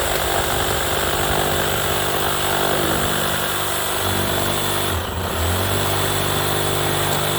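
A motor engine running steadily, with a brief dip in level about five seconds in.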